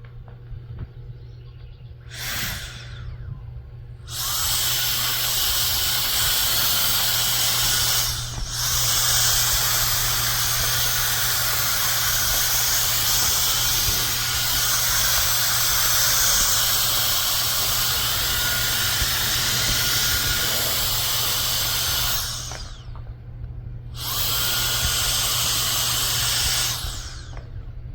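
CCV electric air duster's high-speed brushless fan blowing hard with a loud, hissing rush. It is switched on three times: briefly about 2 seconds in, then for a long run with a short dip, then once more near the end. Each run ends in a falling whine as the fan spins down.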